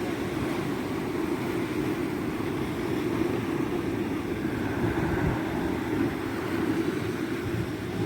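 Steady low rushing of surf and wind at the shore, with no breaks or single strikes.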